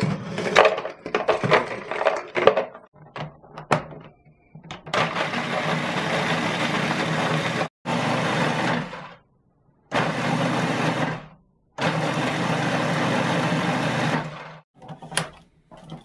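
Biscoff biscuits clattering as they are tipped into a food processor bowl, then the food processor blitzing them into crumbs in four pulses of a few seconds each. Its motor hum sits under the grinding. A few clicks follow near the end.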